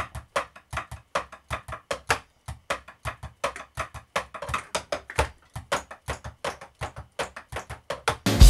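Drumsticks tapping on the pads of an electronic drum kit, heard only as dry clicks and knocks, several strokes a second in a fast drum pattern. The kit's own sound goes to the player's headphones. Recorded drum-kit music cuts back in at the very end.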